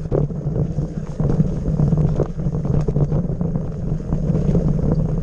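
Wind buffeting a handlebar-mounted camera's microphone on a bike riding fast down a rough dirt singletrack, with frequent sharp knocks and rattles from the bike over bumps.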